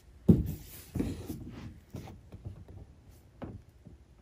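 A few knocks and clicks of plastic electric football figures being handled on the game board. The sharpest knock comes about a quarter second in, with softer rubbing and a small click later.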